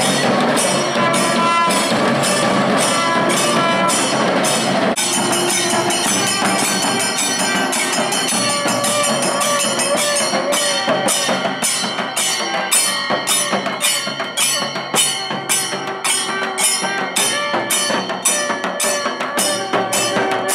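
Temple procession band playing: barrel drums and hand cymbals beating a steady, fast rhythm, with a wavering melody on a wind instrument above it. The sound changes abruptly about five seconds in.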